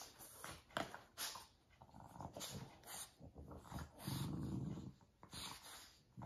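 Two Boston terriers play-wrestling on a fleece dog bed: snuffling and rustling, with a low growl lasting about a second, about four seconds in.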